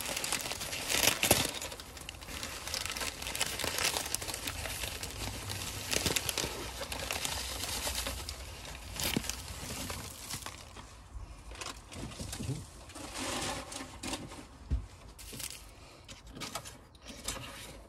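Newspaper crumpling and crinkling as it is unwrapped by hand from a potted cactus, in irregular rustles that are busiest in the first half and quieter later. Near the end, bubble wrap rustles as a wrapped pot is handled.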